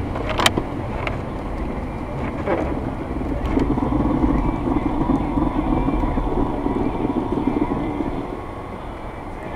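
Ford Explorer driving on a snow-covered road, heard from inside the cabin: a steady engine and tyre rumble, with a sharp knock about half a second in.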